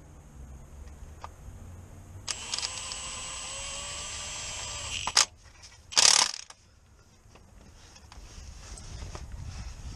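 Cordless power ratchet running on a bolt on the gearbox casing: a steady motor whine of about three seconds, rising slightly in pitch, ending in a sharp click. About a second later comes a louder half-second burst of noise.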